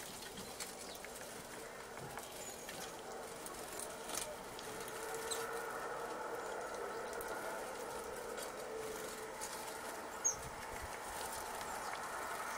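Great tits at a sunflower-seed feeder: scattered light taps and wing flutters, and one brief high call about ten seconds in, over a faint steady hum.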